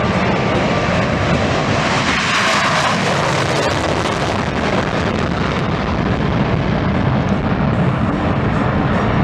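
Fixed-wing aircraft engine noise as a plane flies over, a steady rushing sound that swells about two to three seconds in.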